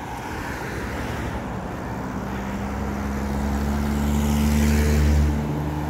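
A motor vehicle passing on the road: tyre noise and a low engine hum grow louder to a peak about five seconds in, then fall away.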